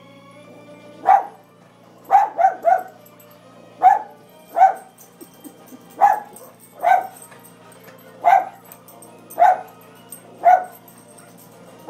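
A small dog barking at a television. About a dozen short, sharp barks come roughly once a second, a few in quick pairs or threes, over faint music from the TV.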